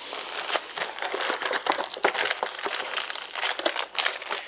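Crinkly metallic-looking plastic packaging being handled and pulled out of a graphics card box: a dense, irregular crinkling and crackling that goes on throughout.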